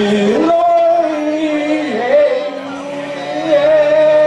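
Men singing into microphones through a PA over backing music, holding long notes, with a brief dip in pitch about two seconds in.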